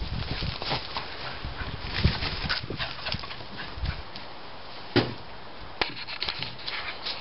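A dog snuffling and scrabbling at the soil under a bush, with scattered short crackles of earth and foliage, which die down about four seconds in. A sharp click about five seconds in, and another a little later.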